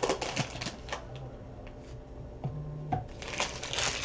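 Foil wrapper crinkling and rustling as a trading-card box is unwrapped and handled, with light clicks and taps in between. There is a burst of rustling at the start and another near the end.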